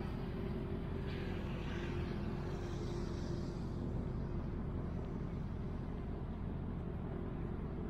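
Steady low engine drone with a held hum from a large passing ship, plausibly one of the Stena ferries, with a brief hiss overhead about a second in.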